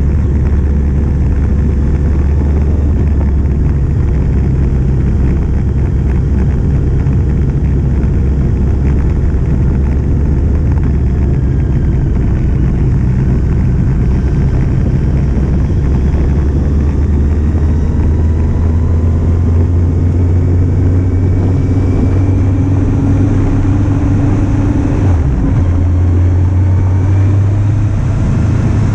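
A 2008 Kawasaki Z750's inline-four engine running steadily while the bike is ridden, its pitch drifting slowly up and down, under a constant rush of wind noise.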